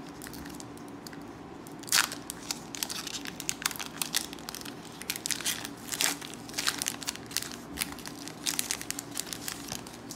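Foil wrapper of a Pokémon trading card booster pack crinkling and crackling as it is opened by hand, a run of sharp crackles starting about two seconds in, the loudest near two and six seconds.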